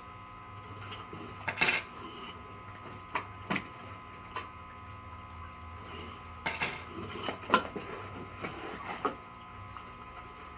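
Irregular clicks, knocks and rustles of siren-kit parts and packaging being handled and taken out of a box, the sharpest knocks about a second and a half in and about seven and a half seconds in, over a faint steady hum.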